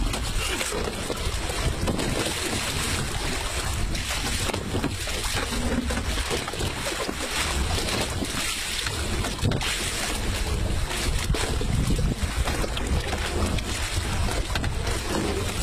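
Steady wind buffeting the microphone over the wash of sea water around a small open boat.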